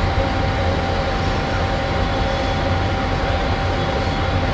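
Passenger train rolling slowly through a station yard: a steady low rumble with a steady high whine over it.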